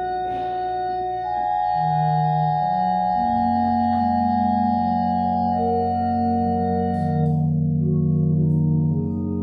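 Organ playing slow, held chords, with a deep bass line coming in about three seconds in.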